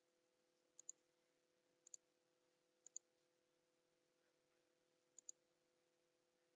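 Computer mouse button clicking: four quick paired clicks, spaced about a second apart with a longer gap before the last, over a faint steady hum.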